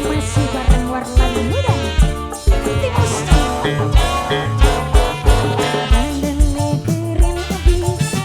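Music with a heavy, regular bass beat and a melody over it.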